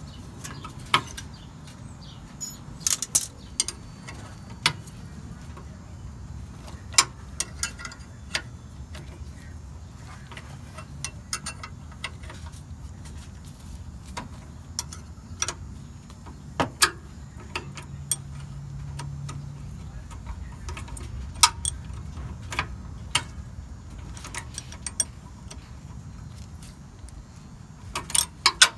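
Scattered sharp metallic clicks and clinks of a hand wrench on a bolt and a steel cable bracket at an automatic transmission's shift linkage, coming at irregular moments over a low steady hum.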